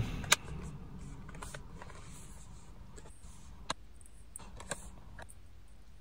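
Clicks from the bottom cover of an HP ProBook 450 G5 laptop as a hand presses down on it: one sharp, loud click just after the start, then two fainter clicks at about three and a half and four and a half seconds, over low handling noise.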